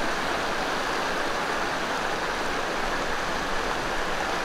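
A rocky stream running over stones: a steady, unbroken rush of water.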